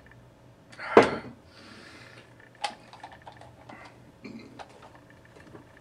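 Desk handling noises: one loud sharp knock about a second in, a short hiss just after it, then a sharp click and scattered light clicks and taps.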